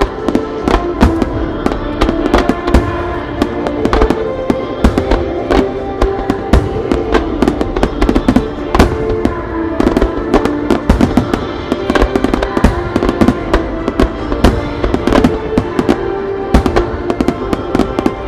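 Fireworks bursting in a rapid barrage, many sharp reports a second, over music playing throughout.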